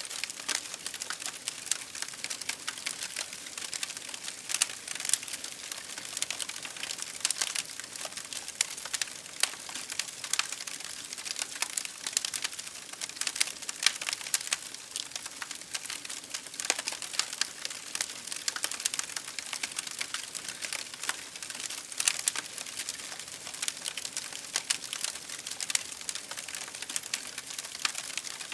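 Campfire firewood crackling: a dense, irregular run of small sharp pops and snaps, several each second, with a few louder pops standing out.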